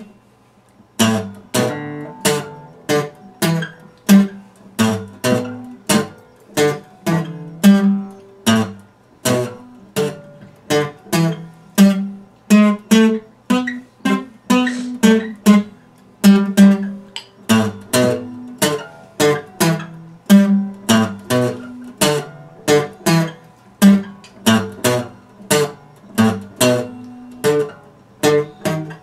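Steel-string acoustic guitar played in a steady rhythm, about two chords a second, each struck sharply and left ringing as it fades.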